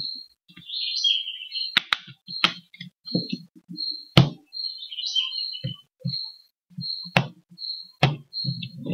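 Plastic clicks and knocks of a Huawei Y330 phone being handled with its battery out, the sharpest snap about four seconds in, with soft thuds between and a rubbing rumble near the end. Behind it a short high chirp repeats about every two-thirds of a second.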